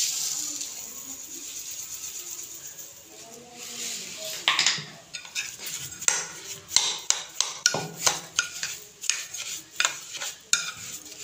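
Granulated sugar poured onto grated apple in a glass bowl, a soft hiss for the first few seconds. Then a metal spoon stirs the mixture, scraping and clinking against the glass in quick, irregular strokes.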